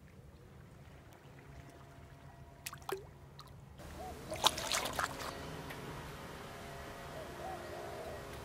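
Water sloshing and lapping at the shore, with a cluster of sharp clicks and splashes about four and a half seconds in.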